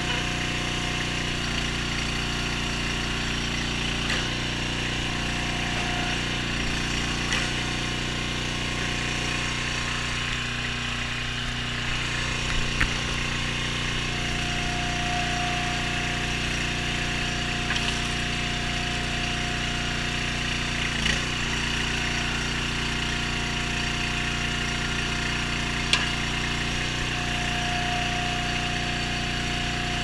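Small gas engine of a hydraulic log splitter running steadily while its ram is worked. A thin high whine comes and goes in the second half, and there are a few short sharp knocks.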